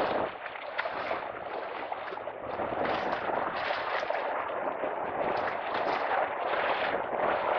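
Wind and choppy lake water splashing against the shore, a continuous noise that swells and falls every second or so.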